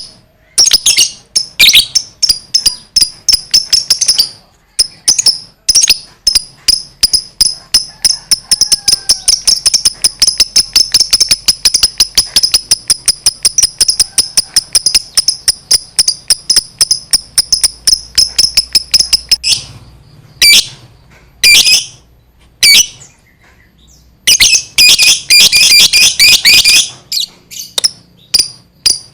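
Lovebird's long "ngekek" chatter: a rapid run of shrill, high-pitched notes that goes on unbroken for about fifteen seconds, then comes back in shorter bursts near the end.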